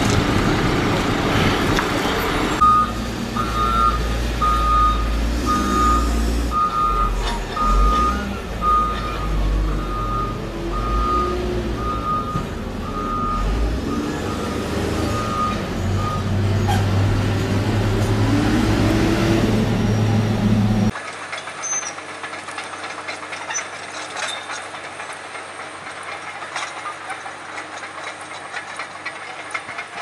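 Heavy diesel work machine's reversing alarm beeping evenly, about three beeps every two seconds for around fourteen seconds, over a deep engine rumble. Later a quieter steady machine noise.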